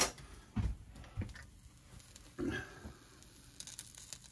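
A few short, soft knocks and handling noises from food being put together in a frying pan on the stove, over a quiet background.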